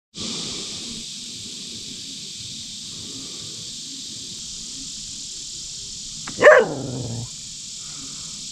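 A dog gives one bark, falling in pitch, about six and a half seconds in, over a steady high chorus of crickets.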